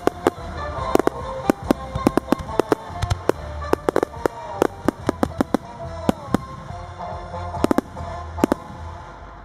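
Fireworks display: aerial shells bursting in rapid, overlapping bangs, several a second, that stop shortly before the end.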